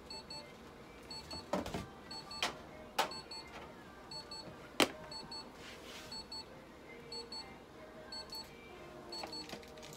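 An electronic device beeping steadily, a quick double beep about once a second, with a few sharp clicks and knocks of handling, the loudest about halfway through.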